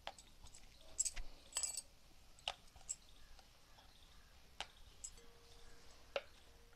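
Faint, scattered clicks and taps of a wooden rolling pin working a round of dough on a wooden rolling board, with light clinks from bangles on the rolling hands.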